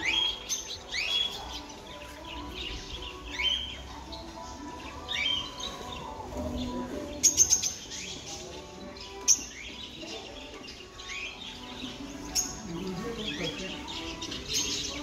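A mix of small cage birds (canaries, budgerigars and lovebirds) chirping and calling throughout in short, rising chirps. A quick run of sharp clicks comes about halfway through, and one more click a couple of seconds later.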